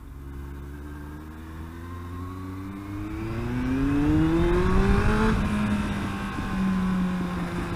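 Yamaha YZF-R1 inline-four engine pulling hard under acceleration, its note climbing steadily for about four seconds. About five seconds in it drops and then runs at a steadier pitch.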